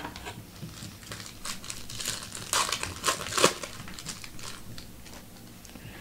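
Crinkling and crackling of a foil trading-card pack wrapper being handled, with a few sharper tearing-like crackles, loudest about two to three and a half seconds in and fading near the end.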